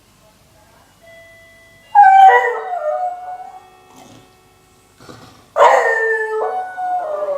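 Old beagle howling in a rough, raspy voice that comes with age: a short falling howl about two seconds in, then a louder, longer howl near the end that holds on and drops a step in pitch.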